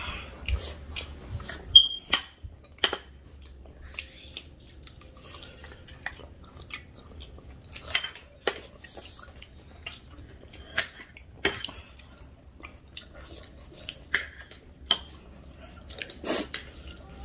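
Close-up eating sounds: cutlery clinking against a dish every second or two, with chewing of spicy chatpate and pakoda in between.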